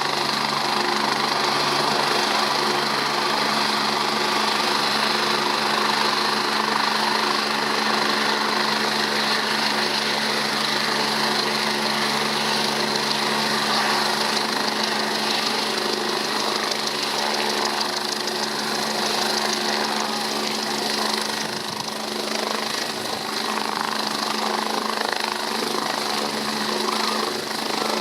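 Rescue helicopter's engines and rotor running steadily.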